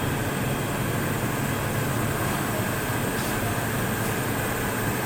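Steady low hum with an even hiss of moving air, like a running blower fan, with two faint ticks about three and four seconds in.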